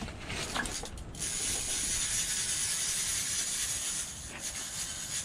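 Ice-fishing reel being cranked to bring in a fish, a steady mechanical whirring with a clicky, hissing texture. It starts about a second in and pauses briefly about four seconds in.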